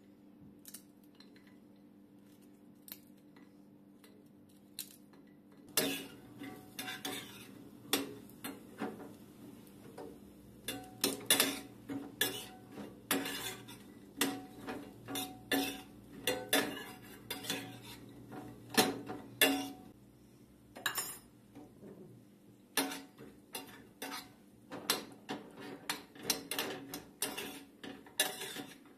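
A metal spoon stirs walnut kernels in a stainless steel pan, clinking and scraping against the pan at irregular intervals. It starts about six seconds in, after a few light ticks.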